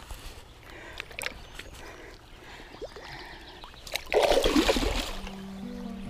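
A released common carp splashing as it kicks free into the river: one short, loud splash about four seconds in. Acoustic guitar music starts near the end.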